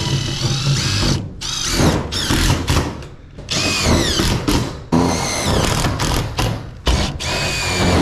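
Power drill running in several bursts of a second or two, its motor speeding up and slowing down with each pull of the trigger.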